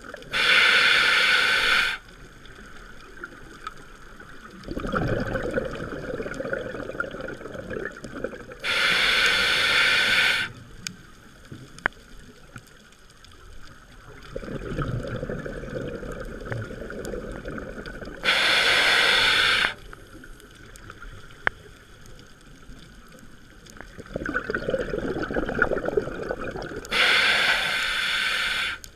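Scuba diver breathing through a regulator underwater: each inhale is a loud hiss of about a second and a half, and each exhale is a longer, lower gurgling rush of bubbles. The cycle repeats about every nine seconds, four inhales and three exhales.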